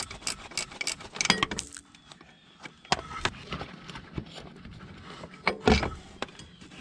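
Scattered metallic clinks, taps and light scrapes of hand tools and parts while a belt tensioner pulley is taken off and fitted on a diesel pickup engine that is not running, with a louder knock a little before the end.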